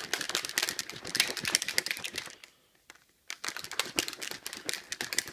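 A protein shake being shaken hard in a shaker bottle: fast, dense rattling in two bouts, with a short pause about two and a half seconds in.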